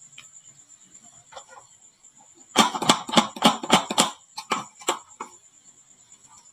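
Marbles clattering down a wooden marble-run slope: a quick string of about a dozen sharp clicks and clacks lasting about two and a half seconds, starting a little before the middle.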